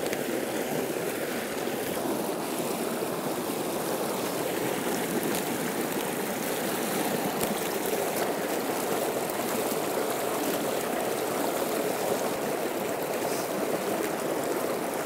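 Small rocky stream rushing and splashing steadily over stones.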